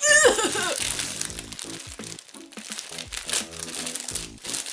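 A woman's short strained cry, falling in pitch, as she pulls hard at a sealed plastic bag. Then the thin plastic crinkles as it is handled, over background music.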